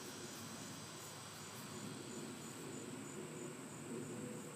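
Insects shrilling in the trees: a steady high-pitched trill with a faint regular pulse, over quiet outdoor background.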